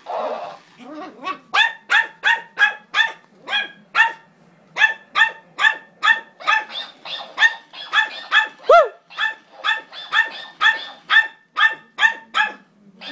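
Small dog barking fast and steadily, about three high-pitched barks a second, at a plush hamster toy; the barking pauses briefly about four seconds in and is broken once, about two-thirds through, by a short rising-then-falling cry.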